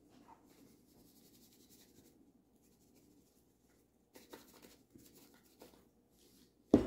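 Faint scratchy strokes of a knife cutting on a cutting board, in two short spells, then one sharp knock near the end.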